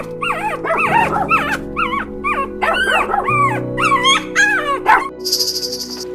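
A dog whimpering and yipping: a quick run of short, high calls, each rising and falling in pitch, over background music. The calls stop about five seconds in, and a high steady buzzing starts.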